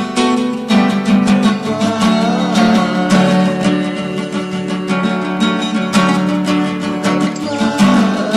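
Acoustic guitar music: rapid strummed and plucked guitar over a held low note, with a few higher notes sliding in pitch.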